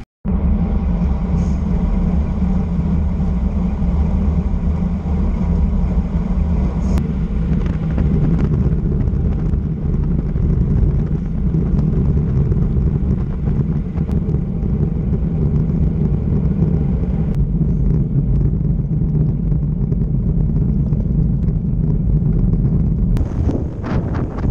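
Steady wind buffeting and tyre rumble on the microphone of a camera mounted on a road bike riding along on asphalt.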